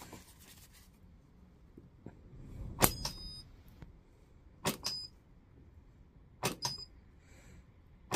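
Battery spot welder re-tacking a rusty nickel strip onto 18650 cells, which had not been making connection: three sharp cracks about two seconds apart, each followed by a short high beep.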